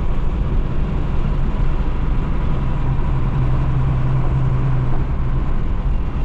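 Motor vehicle on the move: a steady, loud, low engine rumble with road noise.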